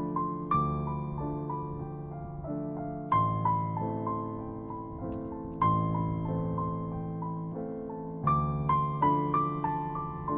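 Background piano music: a slow, gentle melody of single notes over sustained low chords.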